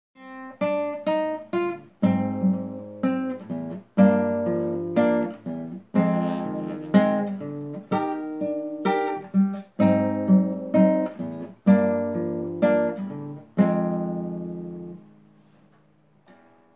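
Nylon-string classical guitar playing an introduction of strummed and plucked chords in a steady rhythm. The last chord is left to ring out and fades away about three seconds before the end.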